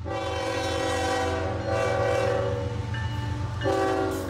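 Locomotive air horn sounding a chord in long blasts, the chord shifting about a second and a half in and again near the end, over a steady low rumble.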